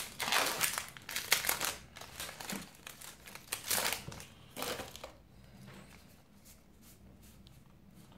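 Foil wrapper of a Magic: The Gathering booster pack crinkling as it is pulled open and the cards slid out, in a string of crackly bursts that die down about five seconds in.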